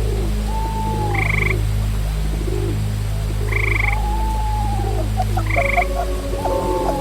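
Frogs croaking in a steady ambient chorus: a short buzzy call repeats about every two and a half seconds, with lower arching calls in between, over a steady low drone.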